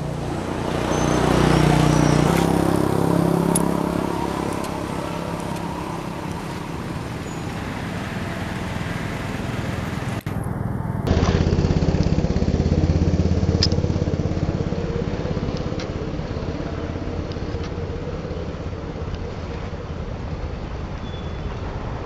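Motor vehicle engines humming steadily as traffic passes, swelling about two seconds in and again after an abrupt cut about eleven seconds in.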